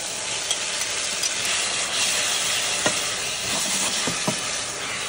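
Glass noodles and vegetables in chili sauce sizzling in a frying pan as they are stirred with a wooden spatula, with a few light clicks of the utensil against the pan near the middle.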